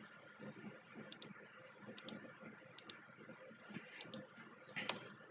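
Faint clicks from a computer keyboard and mouse as values are entered, coming in a few close pairs roughly a second apart over a faint steady hum.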